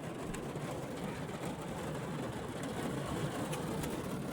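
Rain falling on a car, heard from inside the cabin: a steady rumbling hiss with a few scattered drop ticks.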